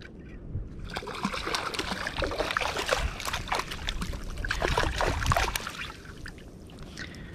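Hooked redfish thrashing at the surface as it is scooped into a landing net, with a dense run of splashing for a few seconds that dies down near the end.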